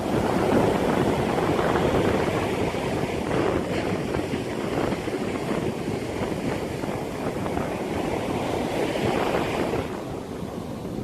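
Sea waves surging and washing in, a continuous rush that swells and eases, easing slightly near the end, with wind noise on the microphone.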